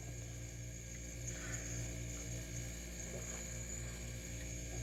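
Steady low electrical hum, with a faint high steady whine above it.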